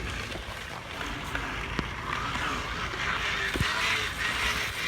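Plastic water bottles in a bicycle's wheels being slapped by the spokes as the bike rolls, making a rapid buzzing rattle meant to sound like a dirt bike. The rattle swells and fades with the riding speed, with a few sharp clicks.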